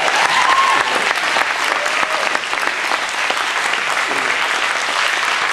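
Congregation applauding with steady, dense clapping, and a voice or two calling out about the first second.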